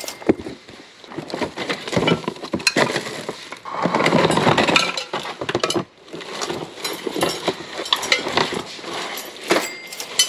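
Hands rummaging through a bin of stored belongings and plastic bags: rustling, with many small clinks and knocks as objects are moved about. The rustling is loudest and densest around the middle.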